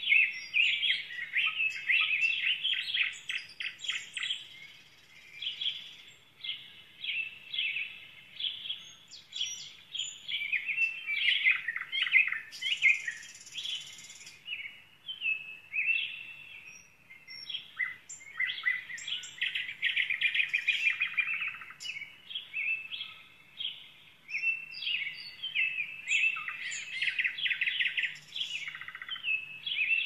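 Small songbirds singing in quick, high chirps and trills, one phrase after another with short pauses between.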